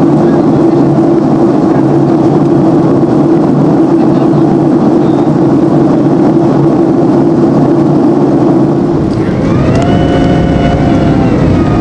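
Steady noise of a Boeing 767-300ER's jet engines and slipstream, heard from inside the passenger cabin in flight. Near the end a whine made of several tones comes in, rising briefly and then holding steady.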